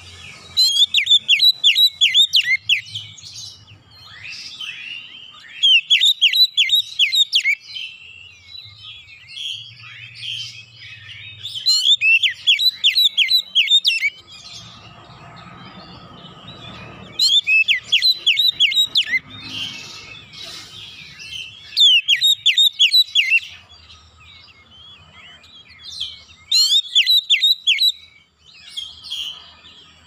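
Oriental magpie-robin singing: about six loud bursts of fast, repeated high notes, each lasting a second or two and coming roughly every five seconds, with softer twittering in between. This is the rapid-fire song that kacer keepers call 'nembak'.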